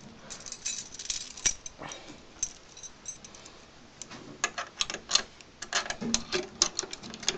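Metal try-out key turning and rattling in a 3-lever lock, the key bit clicking against the levers as it is worked back and forth, with light jingling from the other keys on the ring. The clicks grow quicker and denser from about four seconds in.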